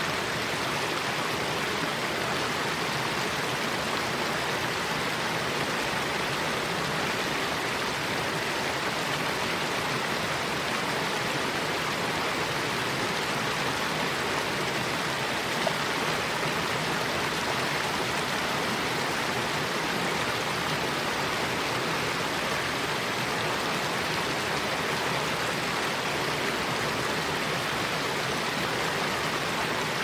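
Waterfall: water rushing in a steady, even noise that holds without change.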